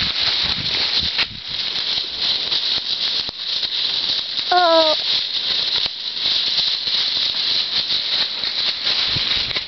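Horses walking through deep dry fallen leaves: a steady crunching, rustling rattle of hooves in the leaf litter. About halfway through there is one short, high call with a slightly falling pitch.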